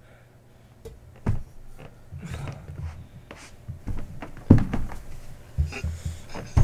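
A few dull thumps and knocks with rustling in between, the loudest about four and a half seconds in: a person moving about a small room.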